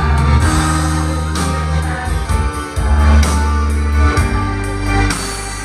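Instrumental band music with long held bass notes, guitar and drum hits.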